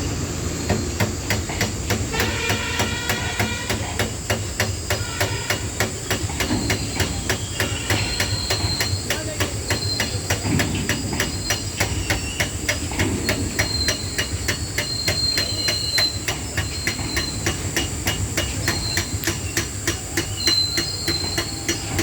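A train passing close by, its wagon wheels clattering over the rail joints in a fast, even rhythm of knocks, with short high squeals from the wheels in the second half.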